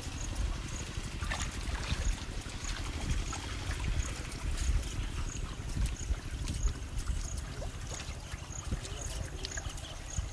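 Shallow pond water splashing and sloshing as people wade and work their hands in it, with short splashes over an unsteady low rumble. Faint high-pitched ticks repeat about twice a second.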